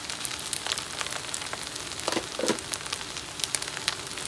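Egg fried rice sizzling in a wok over a high flame, a steady hiss with many small crackling pops. A brief pitched sound about two seconds in.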